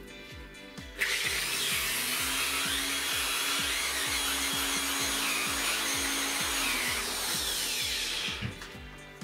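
Corded electric drill running for about seven seconds, starting abruptly about a second in, with a steady motor whine and the hiss of P120 sandpaper against a wooden dowel spinning in its chuck; it winds down near the end. Background music with a steady beat throughout.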